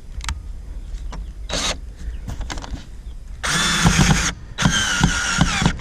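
Power drill driving a screw in two short runs, one about three and a half seconds in and a longer one just after, with a few light handling clicks before.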